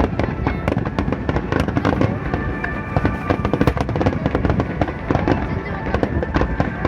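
Fireworks going off in rapid succession, a dense, continuous run of bangs and crackles with no break, over music and voices.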